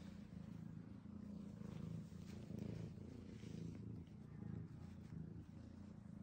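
A cat purring steadily.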